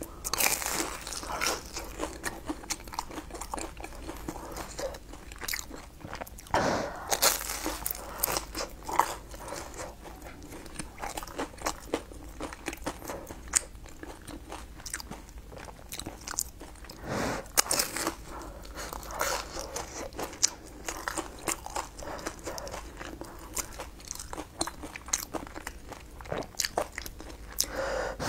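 A person biting into and chewing a crisp-crusted fried patty: dense crunching, crackling and chewing, with bigger crunching spells at each fresh bite every several seconds.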